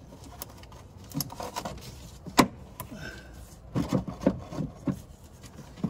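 Hard plastic air filter housing cover and its metal latch clips being handled and pushed: scattered sharp clicks and knocks, the loudest about two and a half seconds in, with a cluster of knocks around four seconds in, and light rubbing of plastic.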